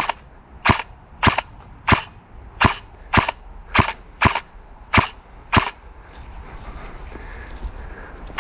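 Airsoft gun fired in single shots: about ten sharp cracks, nearly two a second, that stop about two-thirds of the way in.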